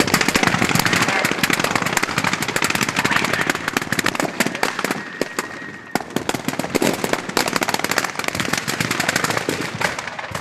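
Pyrotechnics going off: a dense, rapid run of sharp cracks and bangs, like a long string of firecrackers, starting suddenly and easing briefly about six seconds in before picking up again.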